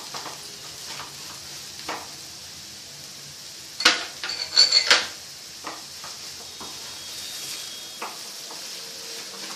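Grated carrot frying in ghee with a steady faint sizzle while a wooden spatula scrapes and taps in the pan, stirring in sugar. About four seconds in, a quick cluster of sharp ringing clinks, the loudest sound, as the emptied cup is set down among the bowls on the plate.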